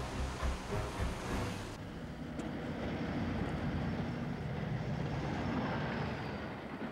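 Street traffic with a lorry passing, then a sudden change about two seconds in to a steady low vehicle rumble.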